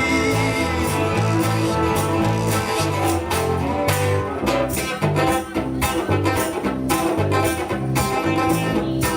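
Live bard-rock band playing an instrumental passage with a steady beat, guitar to the fore.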